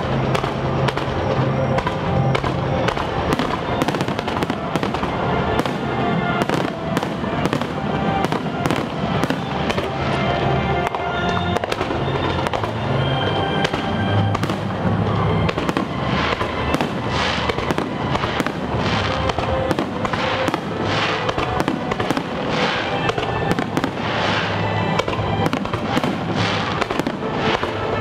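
Fireworks shells bursting one after another in a rapid barrage over accompanying music, the bursts coming thicker in the second half.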